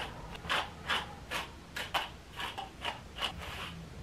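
Hairbrush strokes pulled through long hair, a quick brushing swish about twice a second.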